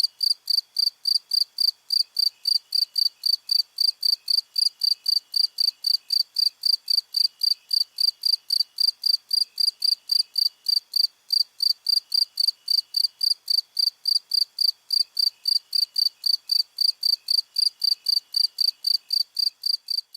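Crickets chirping: one loud cricket chirps in an even, high-pitched rhythm of about three chirps a second. A fainter, lower-pitched cricket chirps in short runs behind it.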